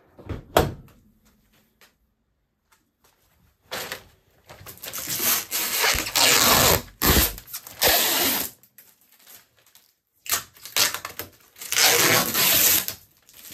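Dishwasher door pushed shut with a sharp latch click, then protective plastic film being peeled and pulled off the top of the machine, crackling loudly in two long stretches.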